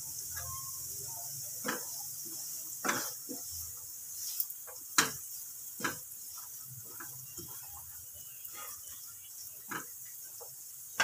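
Dal and chillies frying quietly in oil in a non-stick pan, a soft steady sizzle, with a wooden spatula scraping and knocking against the pan at irregular moments as they are stirred.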